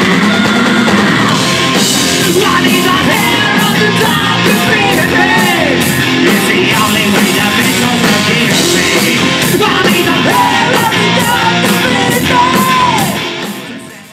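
Live hard rock band playing: a lead singer singing and yelling over electric guitar and drums with a steady cymbal beat. The music fades out near the end.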